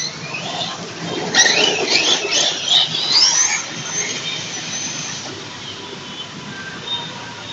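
Hobao SS radio-controlled racing truck running across the lawn, its motor whining high and sliding up and down in pitch as it speeds up and slows. It is loudest in the first half, with a rising whine a little after three seconds, then fades as the car moves away.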